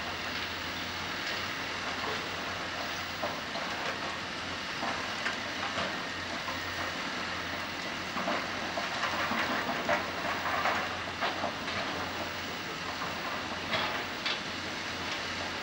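Komatsu PC200 hydraulic excavator running with a steady low diesel hum while its bucket digs, with clattering and scraping of rock and soil that grows busier about halfway through and again briefly near the end.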